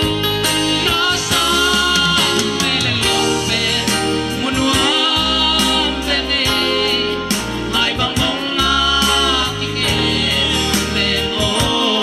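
A man singing a song into a microphone over instrumental accompaniment with a steady repeating bass line, amplified through a PA loudspeaker.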